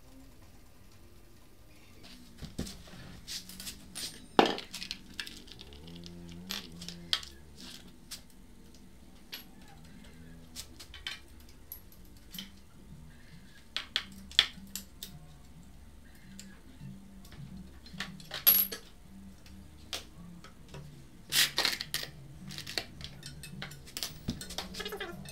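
Hand tools and loose metal parts clinking and tapping while a motorcycle exhaust is being unbolted: scattered sharp metallic clinks, the loudest about four seconds in, with small clusters later on. Quiet background music runs underneath.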